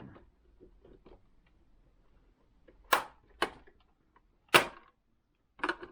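Sharp plastic snaps and clicks from a Singer sewing machine's plastic case being pried and forced apart: a few faint taps, then three sharp cracks in the second half, the last the loudest, and more clicks near the end.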